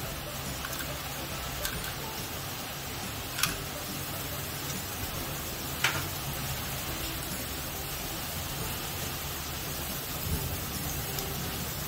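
Murukku dough rings deep-frying in hot oil, a steady sizzle, with sharp clicks about three and a half and six seconds in.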